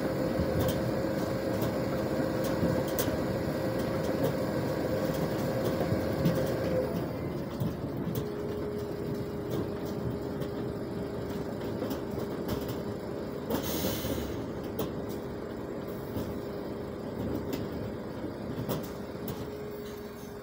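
ROPA Maus beet cleaner-loader running, with its conveyor dropping sugar beet into a truck body with scattered knocks. Its steady drone drops in pitch about a third of the way in. A short hiss of air is heard about two-thirds of the way through.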